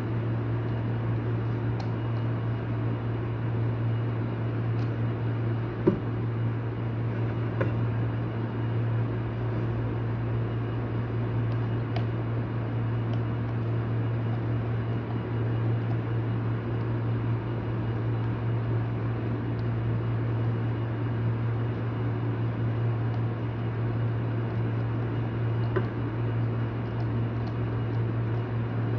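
A steady low machine hum, like a motor or fan running, unchanging throughout, with a few faint clicks and taps.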